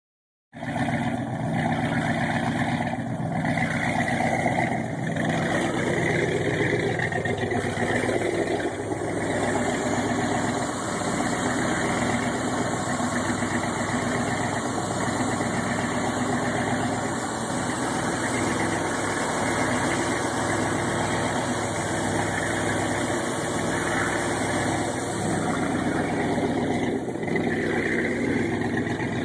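Supra Sunsport ski boat's carbureted V8 inboard engine idling steadily and smoothly, purring on its first start of the season.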